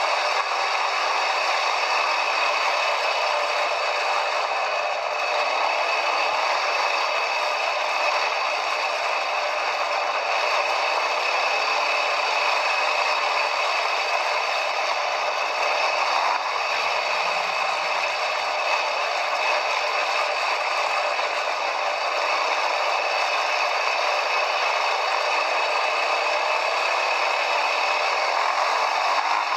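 Quad bike riding over rough ground, heard on board: a steady rattling and scraping noise with no pauses.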